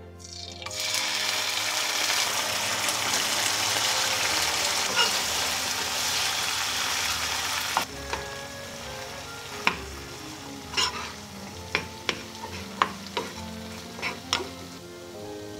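Chili tuna and its oil poured into a hot oiled frying pan, sizzling loudly and steadily. About eight seconds in the sizzle drops, and a spatula stirring rice through the tuna scrapes and knocks against the pan in a string of sharp clicks.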